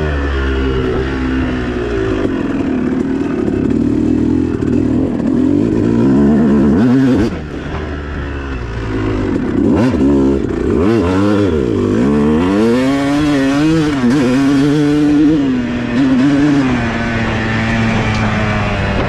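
250 cc two-stroke motocross bike engine being ridden, its pitch rising and falling again and again with throttle and gear changes. The level dips briefly about seven seconds in as the throttle closes, and the engine holds a steadier note near the end.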